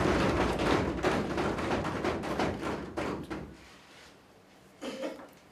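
Audience applause after an oath of office, a dense patter of clapping that dies away about three and a half seconds in.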